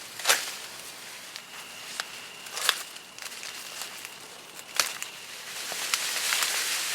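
Footsteps through a row of corn, with the stalks and leaves rustling and giving a few sharp crackles as they are pushed aside; the rustling swells near the end.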